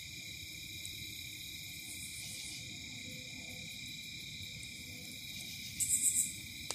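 Night insect chorus: crickets trilling steadily in several high pitches at once. A brief loud raspy burst stands out about six seconds in.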